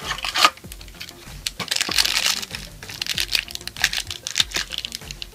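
A foil blind-bag packet from a Minecraft mini-figure box crinkling and crackling as it is handled, then torn open by hand, with a noisy tearing stretch about two seconds in. Soft background music plays under it.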